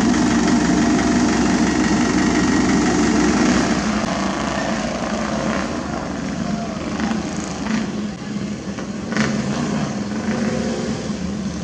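Diesel engine of paving equipment running steadily, louder for the first few seconds and then easing off a little. A few short sharp knocks come in the second half.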